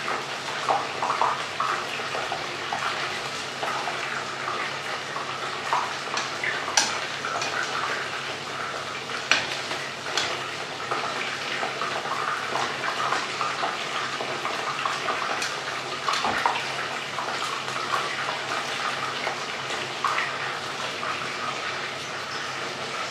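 Chicken pieces frying in a pot of oil: a steady sizzling hiss, with a few sharp clicks of metal tongs against the pot as the pieces are turned.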